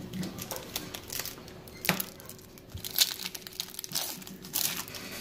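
Foil wrapper of a Topps Update baseball card pack crinkling and tearing as it is pulled open by hand, in irregular crackles that get louder from about two seconds in.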